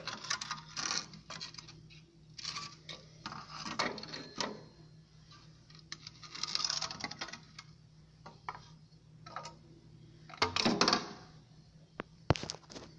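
Flaking rust on a corroded steel window frame being handled and picked at: scattered scrapes, crumbling and small metallic clinks in several bursts, with a sharp click near the end.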